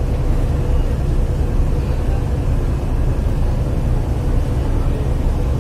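Steady low rumble and noise on the deck of a car ferry underway, with a faint steady hum in it.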